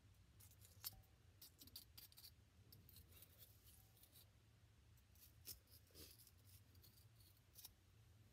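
Faint scratching and scraping of a small plastic pick digging into a water-softened sand dig block, a string of soft scrapes and ticks.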